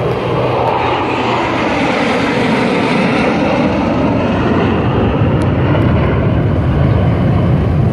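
Four F-16 Fighting Falcon jets of the USAF Thunderbirds flying past in formation: loud, steady jet engine noise with a slow sweeping whoosh moving through it, growing slightly louder as they pass.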